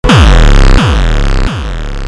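Electronic music: a heavy synth bass with three falling pitch sweeps, each drop a little quieter than the one before.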